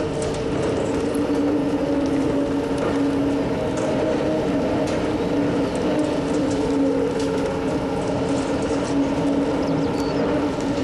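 Bucket wheel excavator running: a steady mechanical drone with two held hum tones and scattered faint clicks and squeaks from the machinery.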